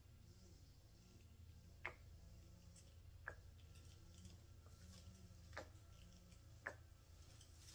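Near silence: low room hum with four faint, sharp clicks spaced unevenly through it.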